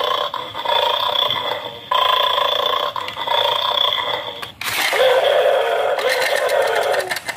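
Battery-operated plastic bulldog toy game playing a tinny, repeating electronic sound effect through its small speaker, in phrases of a second or two. About four and a half seconds in, the toy switches to a louder, harsher electronic sound as the dog springs forward, followed by rapid clicking from its mechanism.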